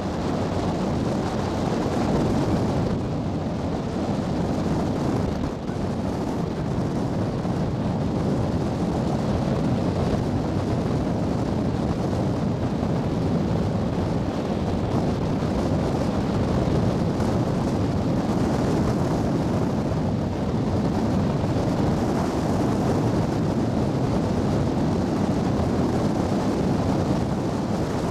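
Steady noise aboard a moving ferry: the drone of its engine mixed with wind on the microphone and the wash of water past the hull, with no change in pace.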